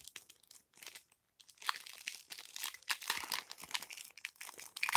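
Foil wrapper of a Panini Prizm football card pack crinkling in the hands: a few faint crackles at first, then steady dense crinkling from about a second and a half in.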